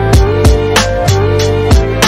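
Background music with a steady beat: sharp drum hits over sustained melodic notes and a deep bass line.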